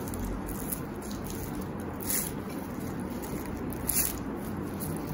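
Freshly pan-fried scallion pancake torn apart by hand, its crispy flaky layers crackling, with sharper crunches about two and four seconds in.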